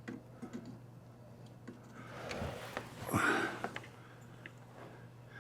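Scattered light ticks and clicks, with two short rustling swells about two and three seconds in: hands working wiring and tools under a dashboard.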